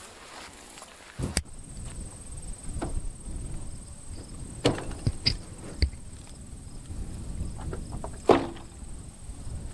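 Wind rumbling on the microphone, with a faint steady high-pitched tone and a few sharp knocks and clicks, the loudest about eight seconds in.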